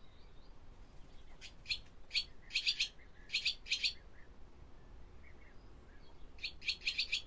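Barn swallow calling: short, sharp chirps in quick runs, several between about one and four seconds in, then another quick burst near the end.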